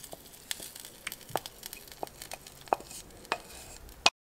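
Wooden spatula scraping thick sauce out of a stainless steel pan into a ceramic bowl: a series of light clicks and knocks as the spatula and the pan rim touch the pan and bowl. The sharpest click comes near the end, and then the sound cuts off.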